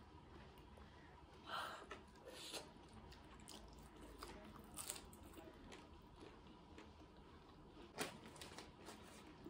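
Quiet eating sounds over near silence: fingers mixing rice and dal on a metal plate and mouth sounds of chewing, with a few brief soft smacks and clicks.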